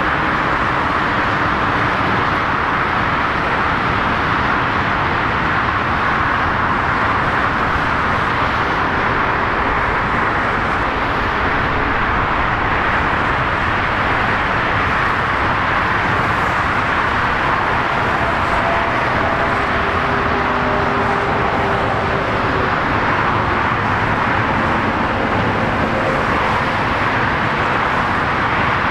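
Steady, unbroken roar of aircraft and airport ground noise, strongest in the middle pitches, with faint short tones now and then.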